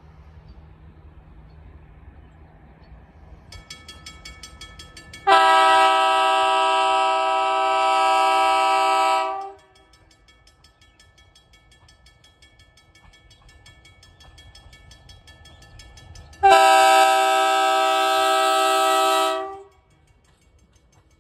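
Budd RDC rail diesel car's air horn sounding two long blasts about seven seconds apart, each a steady chord of several tones lasting about four seconds, with a low rumble before the first blast.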